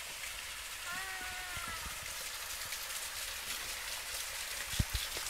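Small spring-fed waterfall splashing down a rock face onto stones, a steady hiss, with hands held in the falling stream. A short pitched call about a second in, and a single dull thump near the end.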